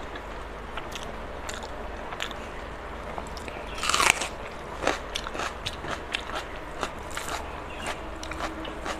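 Close-miked eating: fingers work rice on a steel plate, then a big handful of rice goes into the mouth about four seconds in, the loudest moment. After it come wet chewing and many short mouth clicks.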